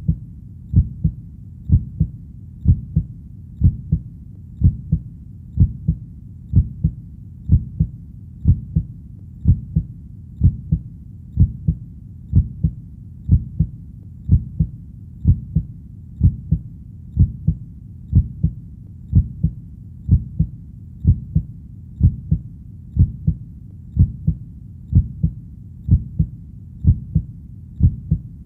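Heartbeat beating steadily at about one beat a second, each beat a low double thump (lub-dub).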